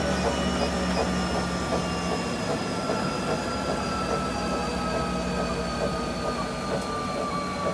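NoblePro Elite E8i treadmill's motor and running belt slowing down, the motor whine gliding steadily lower in pitch as the belt decelerates to a lower set speed.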